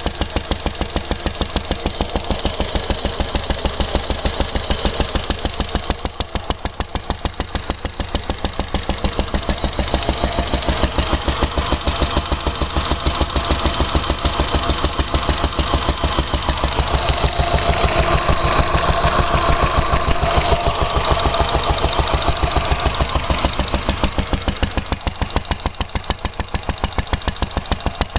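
Lister D single-cylinder stationary engine running steadily, its firing strokes a regular, even beat.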